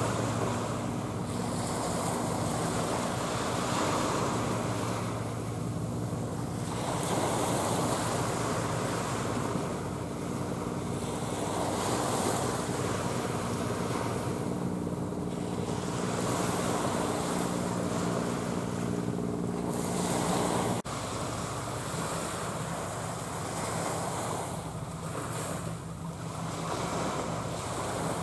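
Wind buffeting the microphone and waves washing at the water's edge, the noise swelling and easing every few seconds over a low steady drone. Near the three-quarter mark the sound drops briefly and the drone changes.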